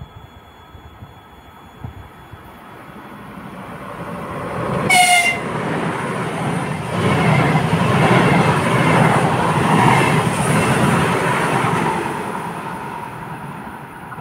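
Lastochka electric multiple-unit train passing at speed: the rumble and rush of its cars builds, peaks as it goes by and fades as it pulls away. A short horn toot sounds about five seconds in.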